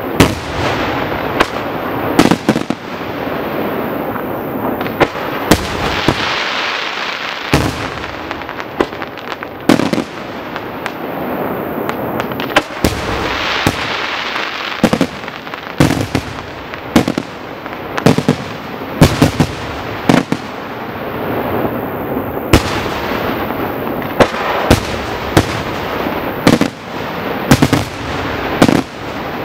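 Bruscella Fireworks aerial shells bursting in quick succession over a display: sharp bangs about once a second, at times in rapid clusters, with stretches of continuous hiss between them.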